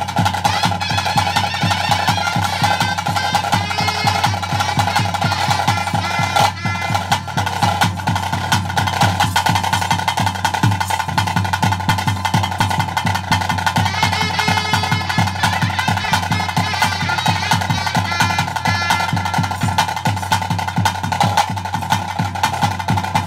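Bhoota kola ritual music (kola vadya): fast, continuous drumming with a steady held tone and a wavering melody above it.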